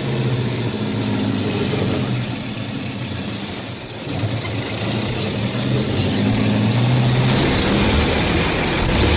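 Truck engine running as the truck drives. Its note drops about four seconds in, then rises and grows louder.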